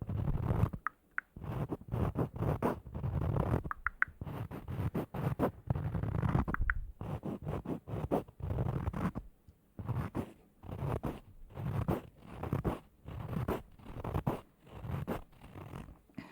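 Close-miked scratching strokes, dense and irregular at first, then settling about nine seconds in into a steady rhythm of roughly two strokes a second.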